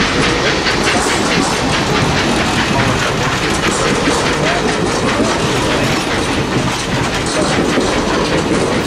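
Passenger railroad cars rolling past close by, their steel wheels clicking rapidly over the rail joints over a steady rush of rolling noise.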